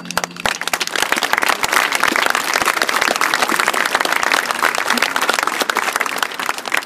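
Audience applauding on the stands, a dense patter of clapping that thins near the end. A drum and bugle corps' final held brass chord cuts off just as the applause begins.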